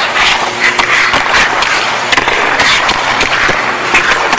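Hockey stick blade clacking against pucks on ice, with skates scraping. The sharp clicks come at an irregular, quick pace over a steady scraping hiss.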